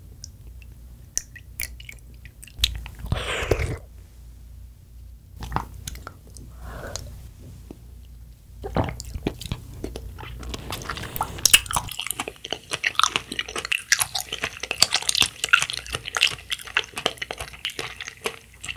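Close-miked eating sounds: a few small mouth clicks at first, then from about nine seconds in dense, crackly, wet chewing and biting of red jelly.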